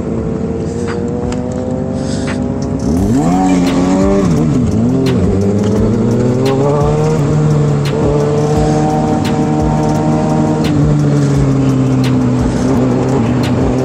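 Sport-bike engine running under way. About three seconds in it gets louder and the revs dip and rise twice, then climb again and settle to a fairly steady pitch.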